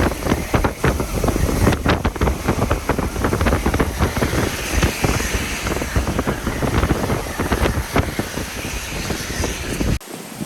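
Hurricane-force wind buffeting the microphone in loud, irregular gusts, with a heavy low rumble and crackling.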